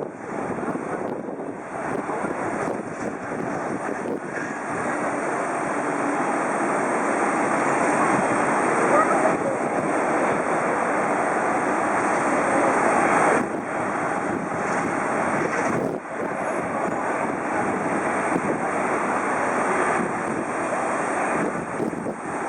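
Airliner engines at an airport: a steady rushing engine noise that swells to its loudest about halfway through, with sudden dips a little after that.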